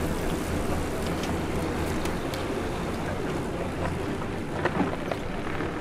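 Wind rumbling on the microphone, steady throughout, with a few light clicks or rattles about four to five seconds in.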